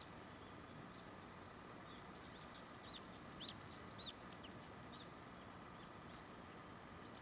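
Faint birdsong over quiet outdoor background noise: a quick run of short chirps, about three a second, from about two to five seconds in.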